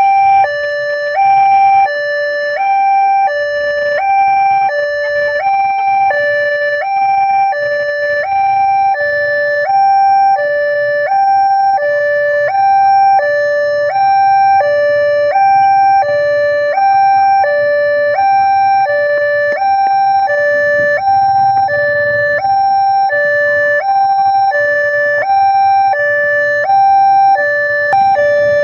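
Electronic railway level-crossing warning alarm sounding, a loud two-tone siren switching steadily back and forth between a lower and a higher pitch.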